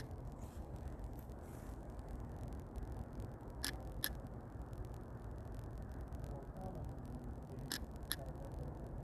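Quiet, steady low background noise broken by two pairs of faint clicks, one pair about three and a half seconds in and another near the end.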